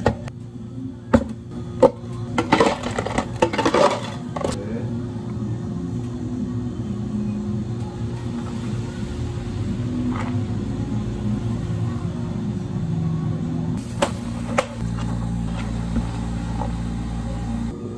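A few sharp clicks and knocks, then an electric machine running with a steady low hum whose pitch shifts now and then. The hum gets deeper and heavier near the end.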